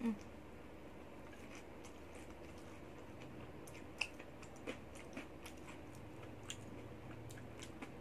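Faint chewing and crunching of crispy deep-fried battered enoki mushroom and minced-meat fritters, with scattered sharp crunches, the clearest about four seconds in.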